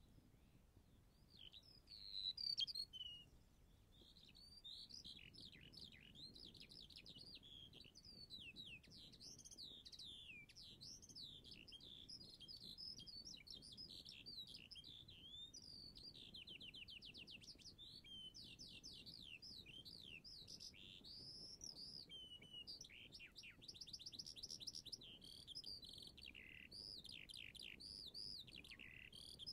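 Faint birdsong: several small birds singing continuously with varied chirps, whistles and quick trills, loudest about two to three seconds in.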